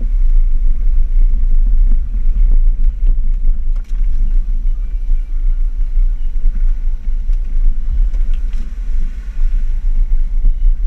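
Off-road vehicle driving along a rough dirt bush track, heard from inside the cab: a steady low rumble, with a few short knocks over bumps.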